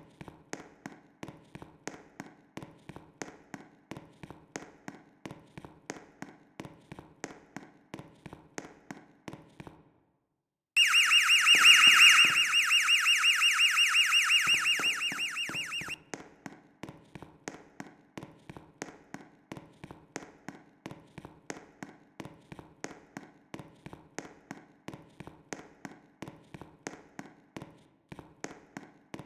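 Fire alarm system sounding during a test. A faint ticking pulse runs at about three or four beats a second. About ten seconds in, the sound drops out briefly, then a loud, rapidly pulsing, high-pitched alarm horn sounds for about five seconds and fades. The faint ticking then returns.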